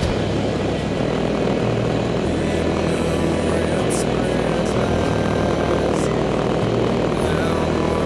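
Yamaha four-stroke single-cylinder dirt bike engine running under way on a dirt trail, heard close from a camera on the bike. Its note steps up and down every second or so as the throttle and engine speed change.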